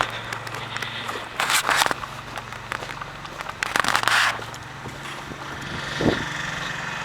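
Two loud gusts of wind buffeting the microphone, about a second and a half in and again around four seconds, over a steady low hum.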